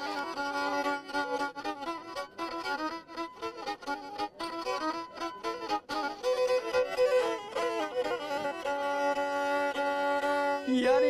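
Black Sea kemençe (Karadeniz kemençesi) being bowed solo in a folk tune: quick runs of short notes for the first half, then longer held notes.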